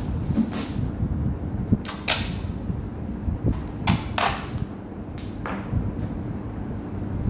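Adhesive tape pulled off the roll in several short rips while strips are torn off for gift wrapping, with metallic foil gift wrap crinkling.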